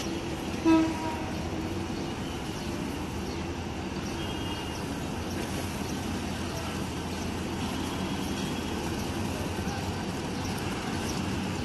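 Meter-gauge diesel locomotive engine running steadily at low speed, with one short horn toot about a second in.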